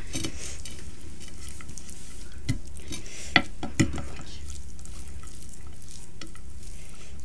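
Fingers mixing and squishing cooked rice and fried fish on a plate, a soft wet crackle, with a few sharp clicks in the middle.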